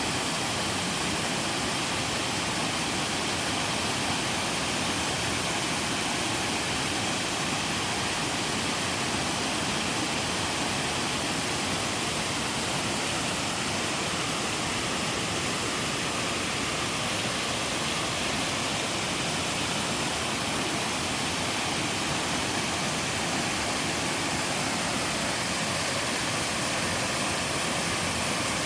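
Two-tiered waterfall pouring steadily into a mountain stream: a constant, even rush of falling water.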